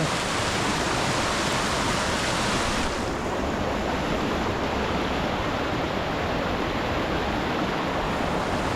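Steady rush of a fast-flowing mountain creek fed by snowmelt, water running over rocks.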